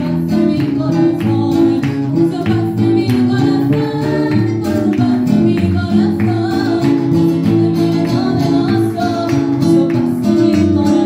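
A Christian chorus (corito) sung by a woman over a guitar accompaniment.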